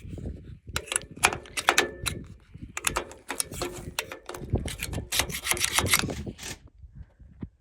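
Sickle sections of a combine header's cutter bar being scraped clean of dried, gummy weed buildup: a quick, irregular run of metallic clicks and scrapes that stops about six and a half seconds in.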